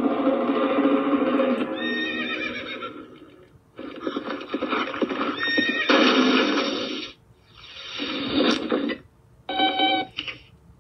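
Cartoon sound effects of a jousting horse: a horse whinnies twice over background music, with long stretches of clattering noise in between. Short electronic beeps come near the end.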